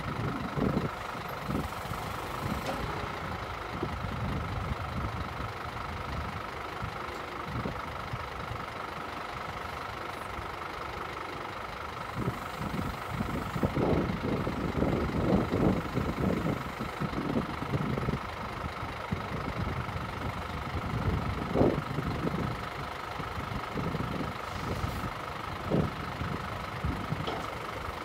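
Scania P270's five-cylinder diesel engine idling steadily while the HIAB loader crane's boom is lowered and extended, with a steady high whine over it and irregular low rumbles.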